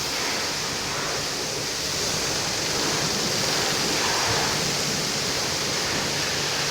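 Car-wash water spraying under high pressure: a loud, steady hiss with no break.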